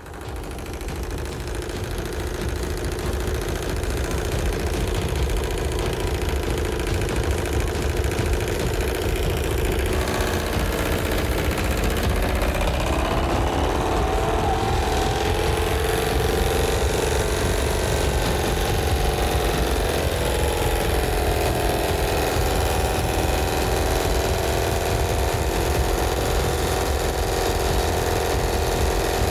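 PAZ bus diesel engine in a runaway, racing uncontrolled at high revs. The sound builds over the first few seconds and then holds steady, its pitch wavering somewhat around the middle.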